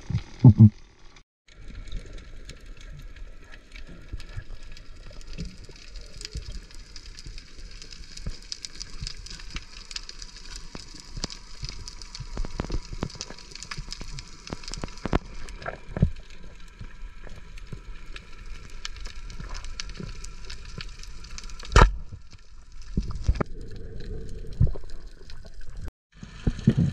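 Underwater sound picked up by a dive camera: a dense, steady crackle of countless tiny clicks over water noise, typical of snapping shrimp on a Florida Keys reef. A single sharp, loud knock stands out about 22 seconds in.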